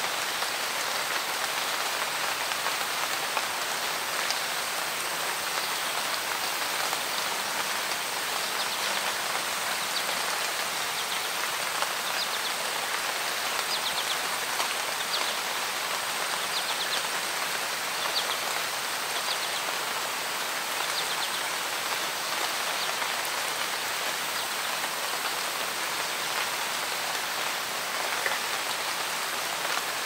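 Steady forest rain falling on leaves and trees: a dense, even patter of drops that keeps up at the same level.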